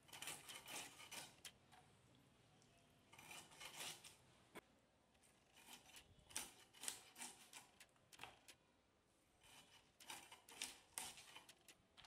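Rui fish being cut by hand against the upright blade of a bonti: bursts of crisp scraping, crunching cuts, about five spells with quiet pauses between.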